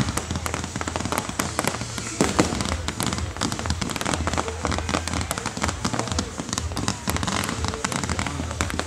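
Fireworks display crackling: a dense, rapid string of small pops, with a louder bang about two and a half seconds in.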